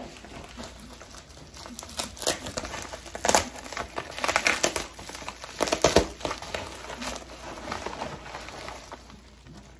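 Pink plastic shipping mailer crinkling and rustling as it is handled and opened, in uneven spells of crackling that are loudest in the middle.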